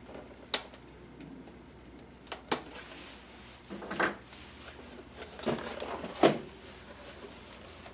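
Sharp snaps and clicks of plastic zip ties being cut with a Swiss Army knife, mixed with knocks from handling the cardboard box; about five separate clicks, the loudest near the end.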